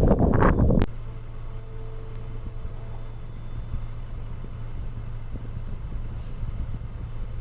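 Wind buffeting the microphone, cut off suddenly with a click under a second in, giving way to a car engine's steady low hum.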